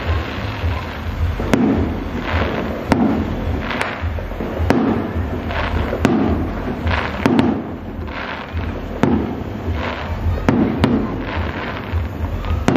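Aerial fireworks going off in quick succession: a sharp bang about every second and a half, each followed by a spray of crackle from gold glittering bursts, over a steady low rumble.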